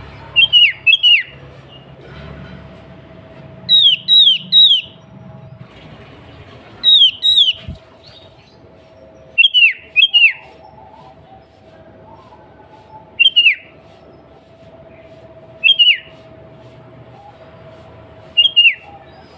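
Sooty-headed bulbul (kutilang) calling: loud short phrases of one to three sharply falling whistled notes, repeated every two to three seconds, over a faint steady hum.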